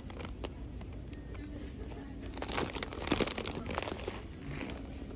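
Crinkling and rustling handling noise with many scattered light clicks over a low steady hum, busiest in the middle.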